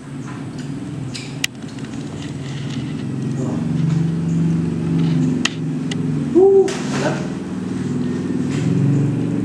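A motor vehicle's engine runs steadily and slowly grows louder. A few sharp clicks come over it, and one short, bent tone about two-thirds of the way through is the loudest moment.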